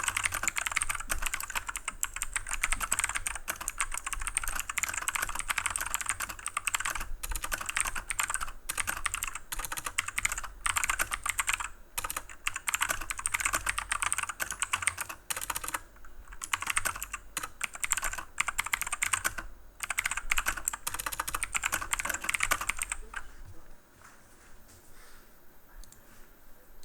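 Fast typing on a Cooler Master CK530 tenkeyless mechanical keyboard with clicky Gateron Blue switches, at about 70 to 80 words a minute: a dense run of sharp key clicks with a few short pauses, stopping near the end.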